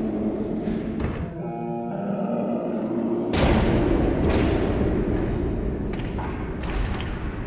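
Heavy booming impacts with long rumbling tails over a low rumble, the loudest about three and a half seconds in, with a brief ringing chord of tones near two seconds in.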